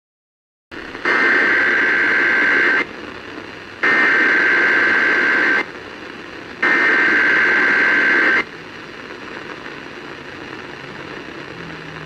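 Emergency Alert System digital header (SAME data bursts) from an FM radio's speaker: three identical bursts, each just under two seconds and about a second apart, over steady radio hiss that carries on after the third burst. The header opens a Required Monthly Test.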